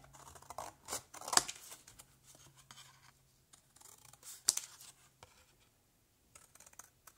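Long-bladed scissors cutting through watercolor paper in scattered snips, the sharpest about a second and a half in and again past four seconds.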